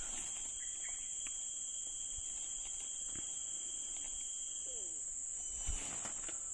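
Steady high-pitched insect buzzing that holds at one level throughout, with a faint low thump near the end.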